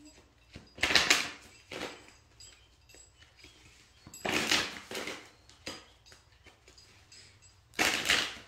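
Tarot cards being shuffled and handled, in three brief rustling bursts: about a second in, around four seconds in, and near the end.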